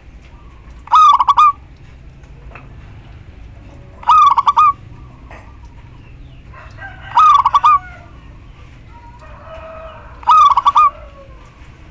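Female zebra dove (perkutut) calling to males: a short, rapid cooing trill, given four times about every three seconds. Other birds call faintly between the calls.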